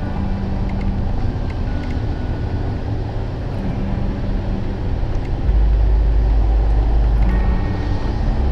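Off-road 4x4 driving along a gravel track, heard from a camera on its hood: a steady rumble of engine, tyres and wind. The rumble grows heavier and louder from about five and a half seconds in.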